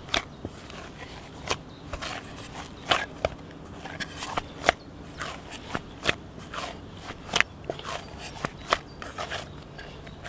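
Bannock dough being kneaded by hand in a metal camping pot: irregular sticky clicks and smacks of the dough against fingers and pot, about one or two a second.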